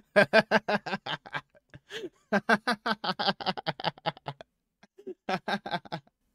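A man laughing hard in three bursts of quick, rhythmic ha-ha pulses with short breaks between them.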